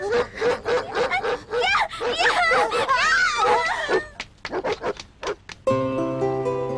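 A dog barking excitedly in quick yelps, about four a second, with excited voices calling and laughing over it. A few short sharp sounds follow, then music comes in near the end.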